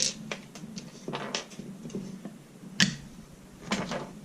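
A few light clicks and taps from handling a leather gun belt and its small metal hardware, the sharpest about three seconds in.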